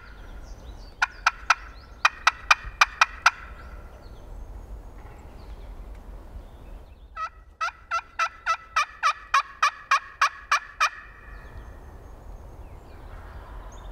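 Turkey yelping: short, evenly spaced notes in runs, three about a second in, about seven more just after, then a longer run of about fifteen at roughly four notes a second starting about seven seconds in.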